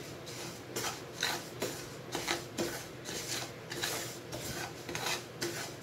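A spatula scraping and stirring broken wheat (dalia) as it roasts in a non-stick pan. The grains rasp against the pan in short strokes about twice a second.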